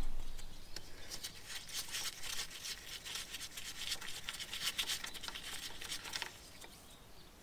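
Spark plug being unscrewed from a Caterpillar pony (starting) motor: faint, irregular scraping and ticking of the tool and threads that stops about six seconds in.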